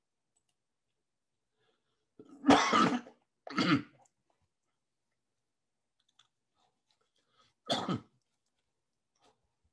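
A man with a cold coughing: two coughs in quick succession about two and a half seconds in, and a third near eight seconds.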